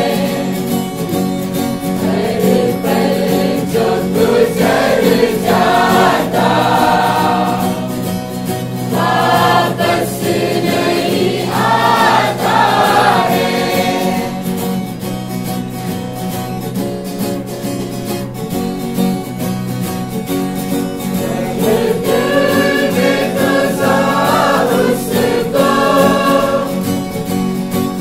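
Mixed choir of women's and men's voices singing a Christmas carol together, with a guitar accompanying.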